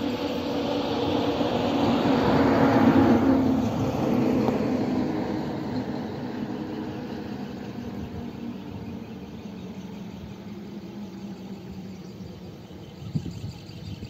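A motor vehicle's engine passing by, swelling to its loudest about three seconds in and then slowly fading away. A few low bumps follow near the end.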